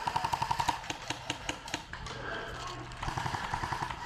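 Airsoft electric guns firing on full auto: a fast, even rattle of shots, with a burst at the start, a few scattered single shots, then another burst from about three seconds in.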